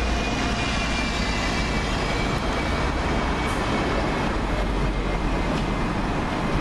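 Alexander Dennis Enviro400 MMC double-decker bus passing close and pulling away, its engine rumble and tyre noise over steady street traffic, with a faint high whine that fades after about two seconds.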